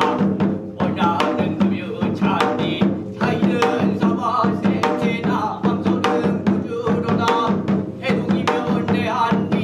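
Korean samul nori percussion for the bina-ri blessing chant: janggu hourglass drum and buk barrel drum, with metal gong strokes, beating a fast, steady rhythm while a singer chants over it.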